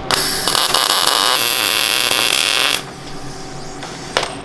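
Welder crackling steadily for nearly three seconds while a steel seatbelt tab is welded to the buggy's tube frame, then cutting off abruptly. A single sharp click follows about four seconds in.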